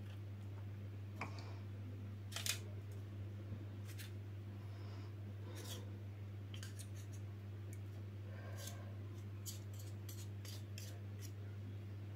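Spoon tapping and scraping against paper cupcake cases and a metal muffin tin as chocolate cake batter is spooned in: scattered light clicks and scrapes, thicker near the end, over a steady low hum.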